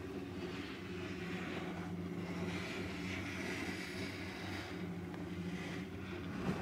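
Steady low hum and rushing inside a gondola cabin (an Omega cabin on a POMA gondola lift) riding along its cable, with a short knock near the end.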